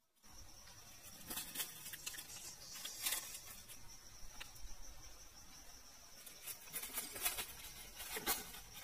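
Woodland ambience: a steady high-pitched insect drone, with a few short crackling rustles in dry leaf litter.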